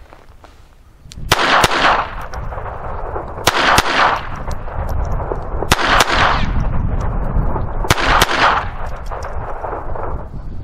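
Eight shots from a Beretta 21A Bobcat .22 LR pocket pistol, fired as four quick pairs about two seconds apart. Each sharp crack trails off in an echo.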